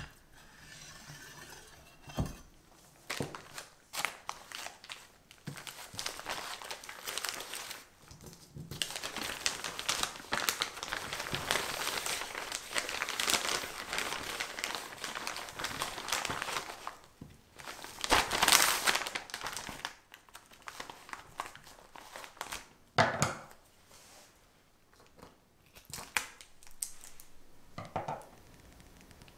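Disposable plastic piping bag filled with cream crinkling and rustling as hands press and smooth it, loudest for long stretches in the middle. A few light knocks and clicks come in the first seconds.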